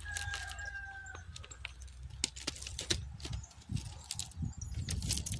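A rooster crows once, a held note lasting about a second and a half at the start. Scattered clicks and light crunching steps on the gravel track ballast follow.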